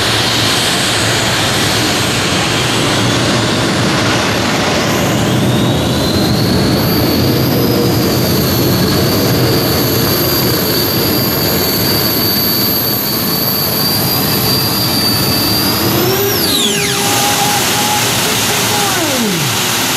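Multi-engine modified pulling tractor running at full power under load, a dense roar with a high steady whine over it. About three-quarters of the way through the whine drops away sharply as the engines throttle back, and a lower tone falls off near the end.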